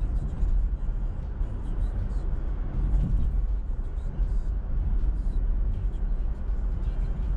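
Steady low rumble of a car driving on city streets: road and engine noise, with faint ticks now and then.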